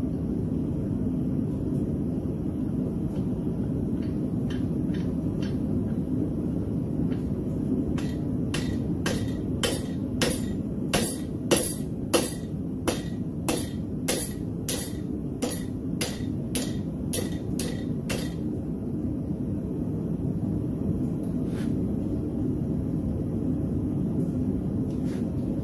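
Hand hammer striking a red-hot split railroad spike set over the anvil's hardy hot cut, driving the split halves open: a few light taps, then about twenty sharp blows at roughly two a second for some ten seconds. A steady low rumble runs underneath.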